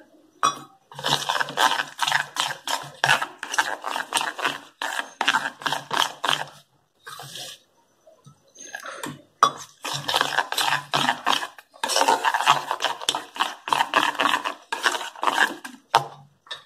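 Gram-flour batter being beaten in a bowl with a utensil, a quick wet slapping and scraping at about three strokes a second. It pauses for a couple of seconds midway, then starts again.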